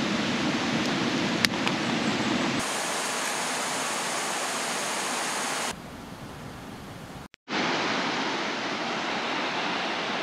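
Shallow river rushing over stones, a steady noise that changes abruptly in level several times. A single sharp click about a second and a half in.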